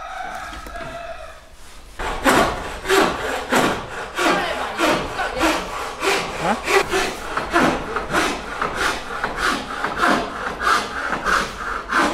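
Hand saw cutting wood in steady back-and-forth strokes, about two strokes a second, starting about two seconds in.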